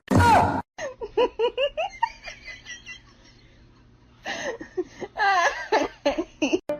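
A person laughing: a loud burst, then a quick run of short laughs, a brief lull, and another stretch of laughter.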